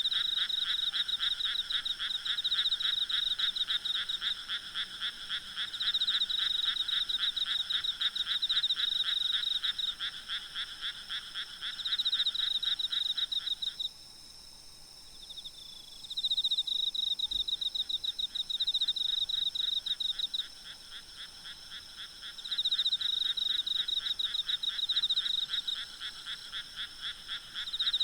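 A chorus of frogs calling at night, several callers at once in fast, evenly pulsed trills that come in bouts of a few seconds. The calls drop away briefly about halfway through, then resume. A faint, steady high insect whine runs underneath.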